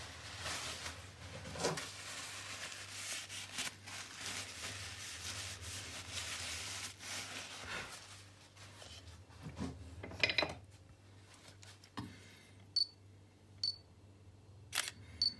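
Rubbing and handling noise, then from about twelve seconds in a run of single sharp camera shutter clicks, several of them with a short high beep.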